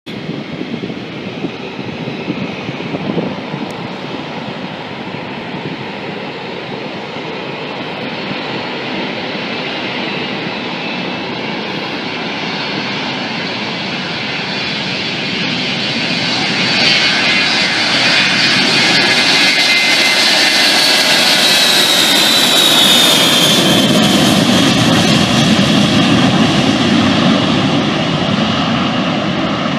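Boeing 707 tanker's four Pratt & Whitney JT3D turbofans at high power on the takeoff roll, the roar growing steadily louder as the jet approaches. A high whine falls in pitch as it passes, about twenty seconds in, and gives way to a lower rumble as it moves away.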